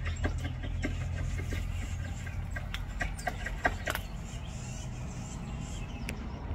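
A squirrel giving a run of short, sharp clucking calls at an irregular pace, thickest in the first four seconds, over a steady low hum.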